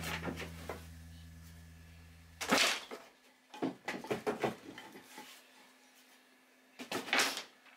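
Background music ends about two and a half seconds in. It is followed by a few separate knocks and clatters of household items being handled and set down.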